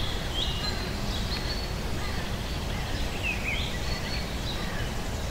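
Outdoor nature ambience: a steady low rumble of background noise, with small birds giving short, high chirps now and then.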